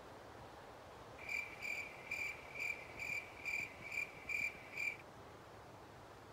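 A cricket chirping: a run of about nine short, high-pitched chirps, roughly two and a half a second, starting about a second in and stopping near five seconds.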